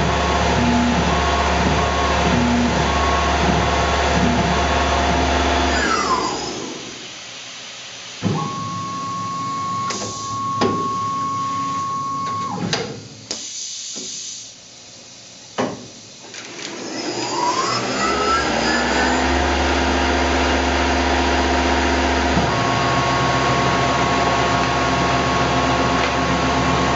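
Tormach PCNC 1100 CNC mill running as it finishes peck-drilling with a 1/8-inch twist drill; its spindle winds down with a falling whine about six seconds in. After a quieter stretch with a steady tone and a few clicks, the spindle winds back up with a rising whine around sixteen seconds and runs steadily with the new tool.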